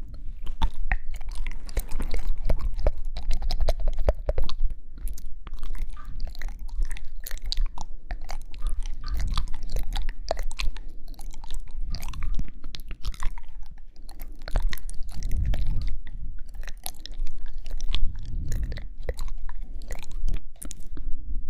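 ASMR mouth sounds close to the microphone: a dense, unbroken run of wet clicks and smacks.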